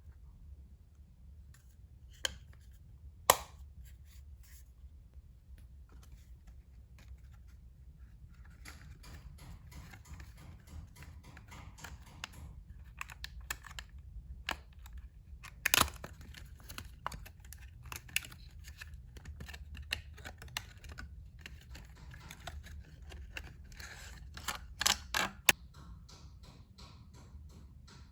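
Packaging being handled and opened: soft rustling and crinkling with scattered sharp clicks and snaps, the loudest about three seconds in, near the middle and a quick cluster near the end.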